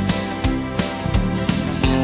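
Background music with a steady beat, about three beats a second.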